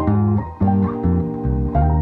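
Instrumental background music: a plucked-string melody over a bass line, the notes changing every fraction of a second.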